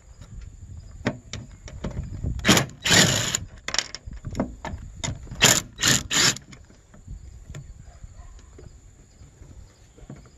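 A cordless drill with an 8 mm socket spins out the small bolts from a fuel pump's sheet-metal bracket in several short bursts, with light metal clicks and clinks between them as the part is handled.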